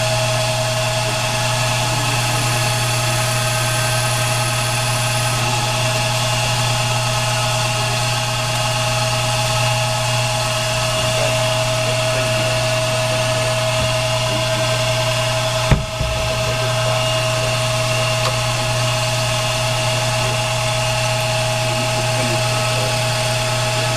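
Lathe running steadily with a constant hum, turning a briar pipe block. A single sharp knock sounds about sixteen seconds in.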